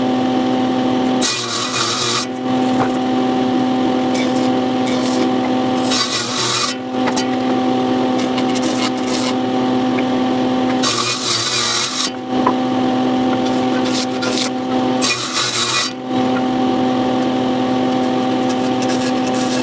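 An electric woodworking tool runs with a steady hum. About every four to five seconds the hum breaks into a rasping stretch of about a second as it bites into wood.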